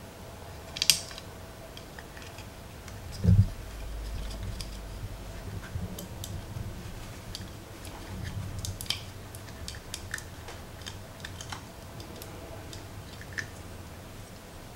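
Scattered small plastic clicks and taps from handling action figure parts and their packaging, with a dull thump about three seconds in.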